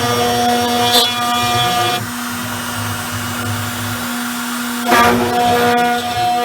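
Small CNC router's spindle whining steadily as its bit cuts 3/16-inch aluminum plate, with a brief louder surge of cutting noise about a second in and again about five seconds in. Between these surges the higher part of the whine drops away, leaving a lower, slightly quieter hum.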